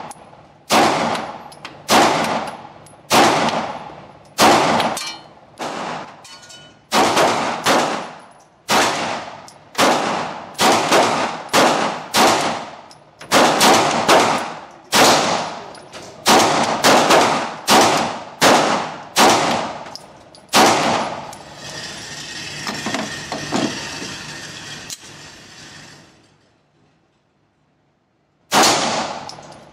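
A Sig Sauer 9mm pistol fired shot after shot at a quick, steady pace, about one a second or faster, each report ringing off the concrete walls of an indoor range. Past the middle the shots give way to a few seconds of steady hiss and a short silence, then the firing starts again near the end.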